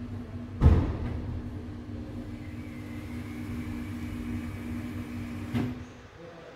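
Enor lift's machine-room motor humming steadily, heard muffled through the machine-room door, with a loud thump about half a second in and another just before the hum cuts off near the end.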